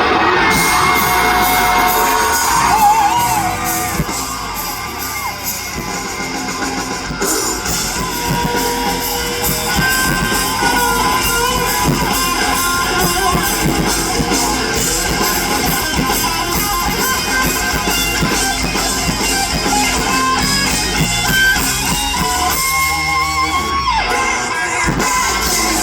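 Live band music: a guitar-driven rock song with singing, playing loudly and steadily.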